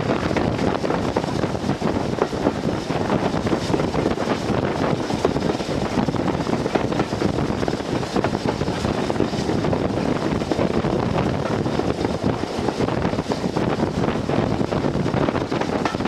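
Steam locomotive under way, heard from on board: a steady, loud running noise of the train on the track, with wind buffeting the microphone.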